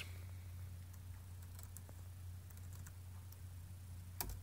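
Faint, scattered keystrokes on a computer keyboard over a steady low hum, with one louder key click near the end.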